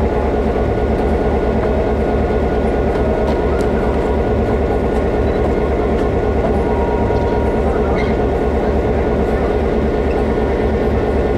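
A steady low engine drone that does not change.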